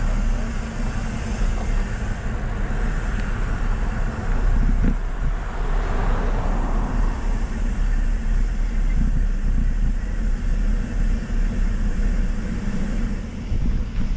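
Steady, rough rumble of a mountain bike being ridden: wind buffeting the microphone and tyres rolling, with a couple of brief knocks about five seconds in.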